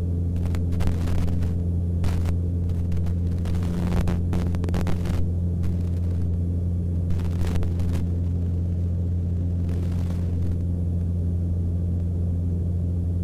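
Mooney M20C's four-cylinder Lycoming engine and propeller droning steadily at climb power, as heard in the cockpit, with a few brief hissy crackles over it.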